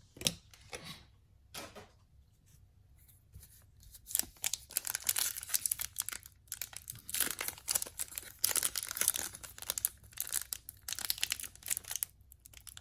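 Plastic wrapper of a sealed trading-card pack being crinkled and torn open in fits and starts. It begins about four seconds in, after a few light handling clicks.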